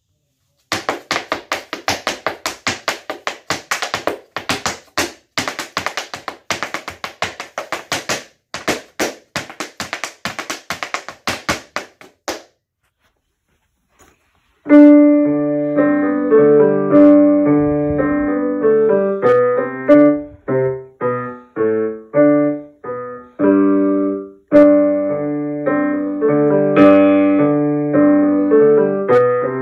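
Hard dance shoes rapidly tapping and stamping on a wooden floor for about twelve seconds. After a short pause, a digital piano plays a piece of notes and chords to the end.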